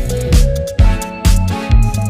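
Background music with a steady beat, about two beats a second, over a bass line and melody.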